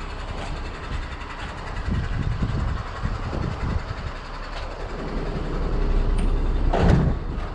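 Crane tow truck's diesel engine running, growing louder over the last few seconds, with one sharp clank near the end.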